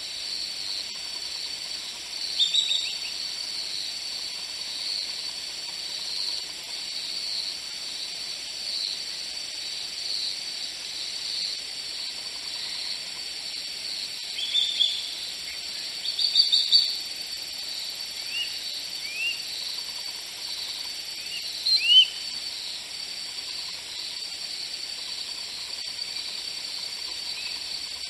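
Outdoor nature ambience: a steady high insect buzz with short bird chirps over it, many of them rising in pitch. The chirps come once a few seconds in and then in a cluster through the second half.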